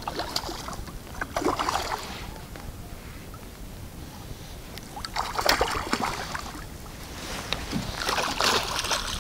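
Water splashing and sloshing against a small boat, in three surges a few seconds apart.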